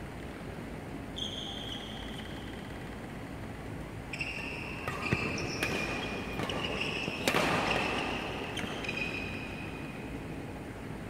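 Badminton rally: about five sharp racket strikes on the shuttlecock over a few seconds in the middle, the loudest near the end of the exchange. Short squeaks of court shoes on the floor come once early and then run through the rally.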